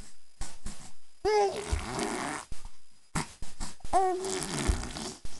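A baby boy spitting, blowing two wet raspberries, each opening with a short high vocal sound that falls away into a long buzzing splutter of the lips, with small wet mouth clicks before and between them.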